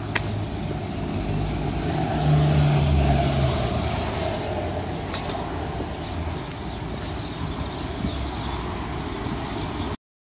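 Road traffic with a vehicle's engine growing louder about two seconds in and fading after about four seconds. There is a sharp click near the start and another about five seconds in, and the sound cuts out suddenly near the end.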